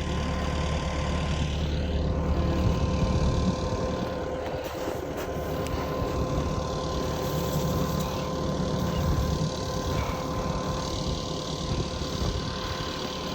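Tractor engine running steadily, with a thin steady whine over the low rumble.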